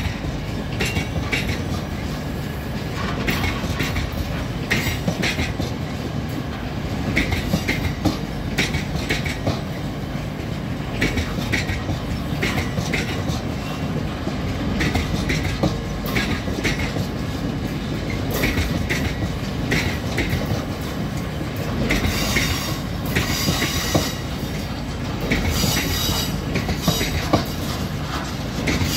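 Freight train of cement hopper wagons rolling past: a steady rumble with repeated clacks of the wheels over the rail joints. For several seconds in the last third, the wheels squeal high-pitched on the rails.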